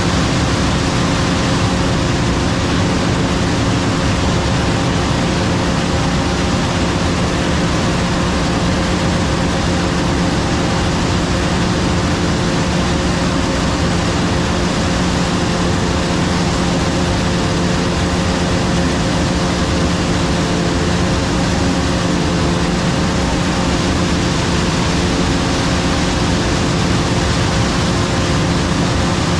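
Combine harvester running steadily while harvesting corn: a constant engine and machinery drone with a steady hum, unchanging throughout.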